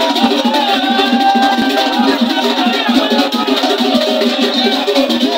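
Music with a steady, repeating beat of rattles and drums and a wavering melody line over it.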